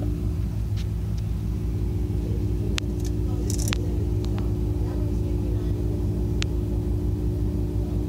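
Steady low mechanical hum and rumble with a constant tone in it. A few short, sharp clicks come around the middle, and one more comes a little later.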